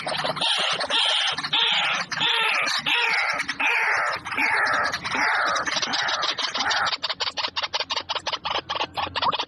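Birds calling: a string of harsh calls, each sliding down in pitch, then about seven seconds in a fast chatter of about six short notes a second.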